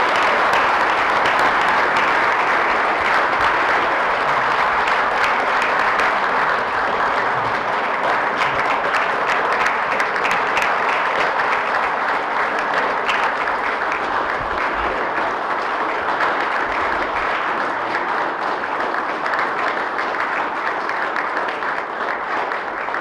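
Banquet audience applauding steadily for about twenty seconds, many hands clapping at once, tapering off near the end.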